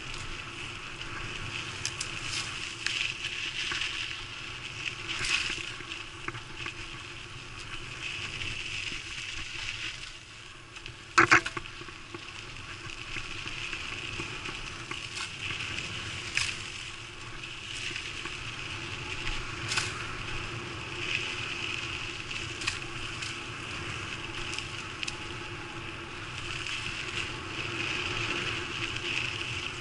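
Mountain bike riding fast along a dirt singletrack: tyres crunching over grit and small stones, with a steady rattle and buzz from the bike and its camera mount and scattered small knocks. One loud sharp clack about eleven seconds in, as from a hard bump.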